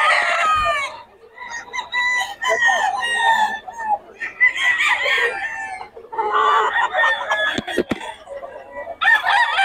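Gamecocks crowing over and over, a crow every two seconds or so, with some clucking between them. Two sharp knocks come near the end.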